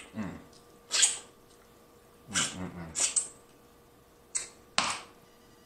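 Close-miked eating sounds of a man eating sauce-dipped shrimp: several short sharp slurps and lip smacks, with a couple of low 'mm' hums of enjoyment, one near the start and one about two and a half seconds in.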